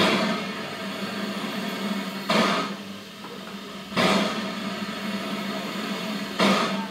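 Stationary LBSCR H2 Atlantic steam locomotive simmering with a steady low hum, broken by four short, sharp puffs about two seconds apart that each die away quickly.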